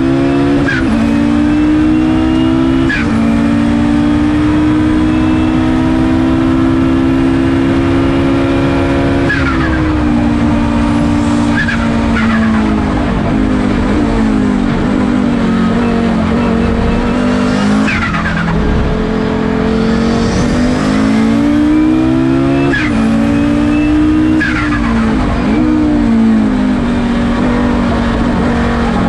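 Audi-derived turbocharged five-cylinder engine of a Gebhardt C88 Group C racing prototype at racing speed, heard from inside the cockpit. Its note holds steady for long stretches, then steps down and climbs again several times through gear changes.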